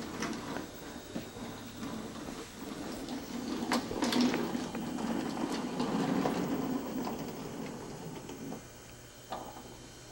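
Wooden toy train cars being rolled along wooden track, a low rattling rumble with scattered clicks and knocks of wooden pieces, loudest around the middle.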